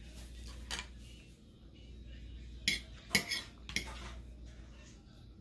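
A metal fork clinking and scraping against a dish while eating: a handful of sharp clicks, bunched together about three seconds in.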